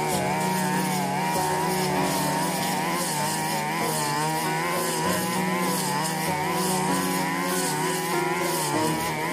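Backpack brush cutter's 42cc engine running steadily at high speed while its blade cuts thick grass. The pitch wavers up and down as the blade meets the grass.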